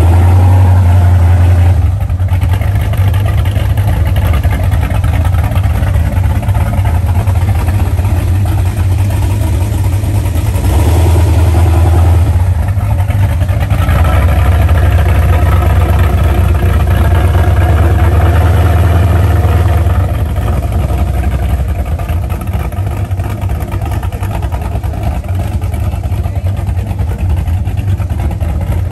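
Car engines rumbling loudly as cars drive slowly past, a deep steady drone that drops in loudness about two seconds in and again about two-thirds of the way through.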